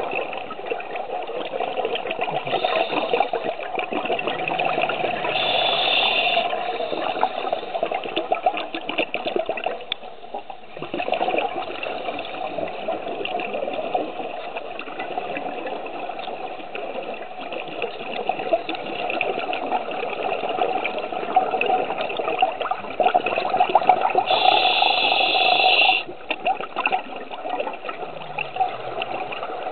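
Underwater scuba breathing: bubbles gurgling from the regulator's exhaust, with a brighter hiss at times, once about three to six seconds in and again near the end.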